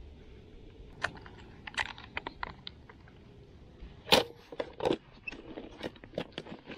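Irregular sharp clicks and taps of fishing tackle and plastic lure packaging being handled, the loudest knock about four seconds in, with more close together after it.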